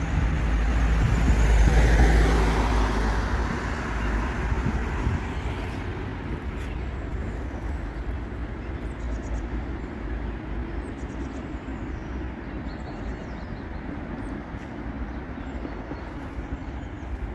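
Road traffic: a vehicle passes close and loud about two seconds in, fading into a steady rumble of traffic on the road.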